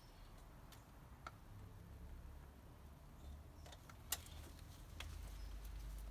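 A few faint, scattered clicks and light taps of parts and tools being handled while a crankcase breather pipe is fitted, the sharpest click about four seconds in, over a low hum.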